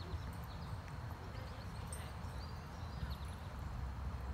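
Wind rumbling on the phone's microphone, with short high bird chirps scattered through.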